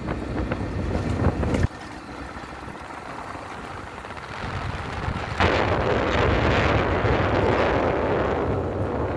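Wind buffeting the microphone over a 150 cc motorcycle riding along a dirt road. The noise drops suddenly a little under two seconds in and comes back louder and hissier about five and a half seconds in.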